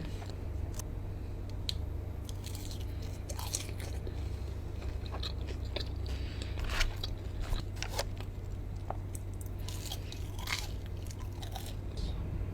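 A person biting and chewing food close to the microphone, with scattered crisp crunches, over a steady low hum.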